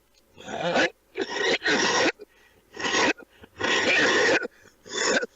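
A man coughing in a fit: six loud coughs in quick succession, some run together in pairs, with short gaps between them.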